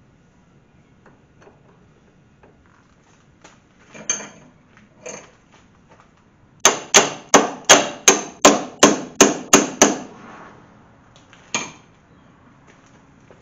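Sharp metal-on-metal strikes from an adjustable wrench used as a hammer to knock a bolt into place at the strut rod and lower control arm. There are two knocks, then a quick run of about ten strikes at about three a second, then one last strike.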